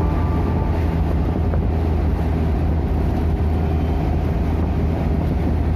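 Steady low rumble of a moving vehicle, with some wind noise on the microphone.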